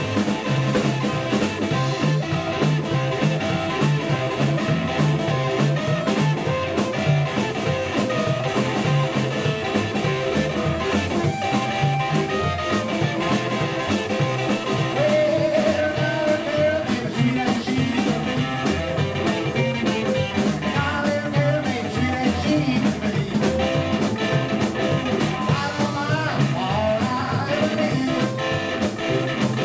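Live blues band playing: harmonica cupped to a hand-held microphone, over upright double bass, hollow-body electric guitar and drums, at a steady beat.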